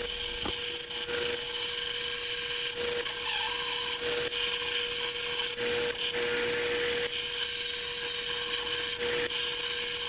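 Power grinder running with a steady whine, grinding down the peened metal ends of an old draw knife's handle tangs so the handles can be knocked off. The grinding hiss eases for a moment several times as the pressure changes.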